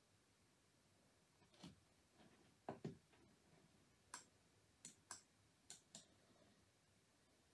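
Faint computer mouse clicks against near-silent room tone, scattered and partly in quick pairs, as the mouse button is pressed and released.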